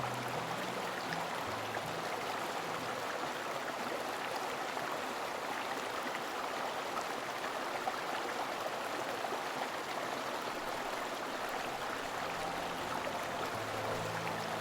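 Steady rushing of a flowing creek, without breaks. Soft low music notes fade out in the first few seconds and return near the end.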